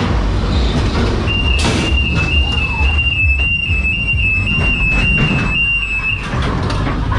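Ghost train car rumbling and clattering along its track, with scattered knocks and a short hiss about a second and a half in. Over it, a high two-tone electronic warble, flipping between two pitches a few times a second, sounds for about five seconds and then stops.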